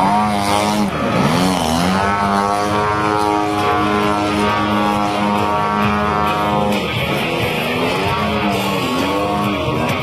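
Gasoline-engined RC model airplane in flight, its engine drone sweeping down in pitch as it passes about a second in and again near the end, holding a steady note in between.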